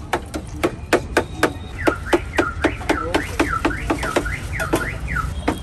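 Rapid clicks and clinks, about four a second, of steel utensils and crisp puris against the steel pots of pani at a pani puri stall. From about two seconds in to near the end, a repeating warbling electronic alarm sounds in the background.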